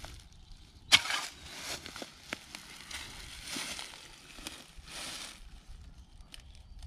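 A clatter of split wooden sticks dropped onto the woodland floor about a second in, followed by rustling of dry leaf litter as someone kneels and shifts on it.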